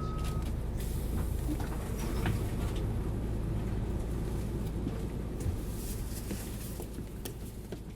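Hino U-HT2MLAA city bus running, a steady low engine rumble with scattered rattling clicks, fading near the end.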